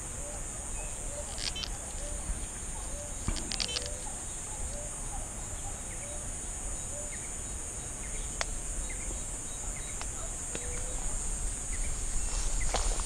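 Steady high-pitched insect buzz, with a faint animal call repeated about twice a second underneath it. Near the end, footsteps and rustling start in tall grass.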